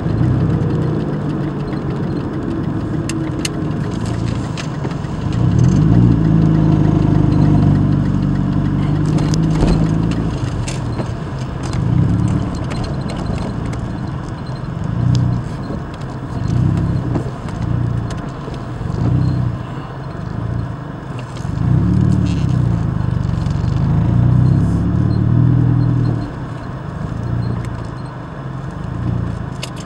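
Car engine and road noise heard inside the cabin while driving, the engine note rising and falling as the car speeds up and slows down, with a few small clicks and rattles.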